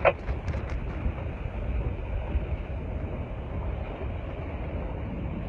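Motorboat under way at sea: a steady low engine rumble mixed with wind and water noise.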